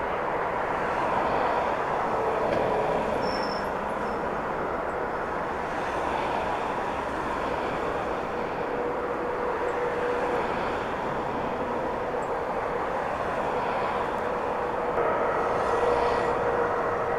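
Jet airliner engines running, a steady rush of noise with a faint steady whine in it, swelling slightly near the end.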